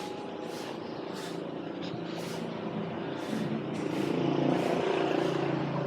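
A motor vehicle's engine running steadily, then growing louder and shifting in pitch about three seconds in, as if speeding up. Soft swishes recur under a second apart over it.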